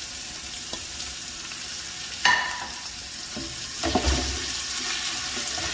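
Sliced raw onions sizzling as they fry in hot oil in an aluminium pot, stirred with a wooden spoon, a steady hiss. One short sharp knock about two seconds in, and a few dull knocks near the end.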